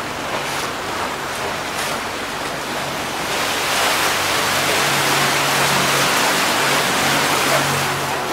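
Steady rushing noise of water and wind on a moving motorboat, getting louder from about three seconds in, with a faint low engine hum underneath.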